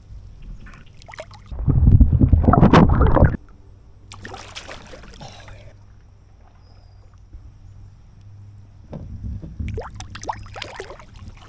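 Canoe being paddled on a lake: paddle strokes and water sounds against the hull, with a loud, low rumble about two seconds in lasting a second and a half.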